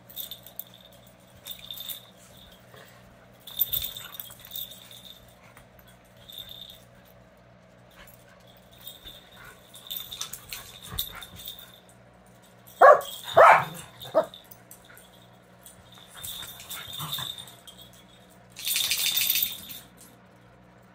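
A Pembroke Welsh corgi and miniature schnauzer puppies play-fighting: scattered short rattling and scuffling noises, with a few loud yaps about thirteen seconds in and a noisy scuffle near the end.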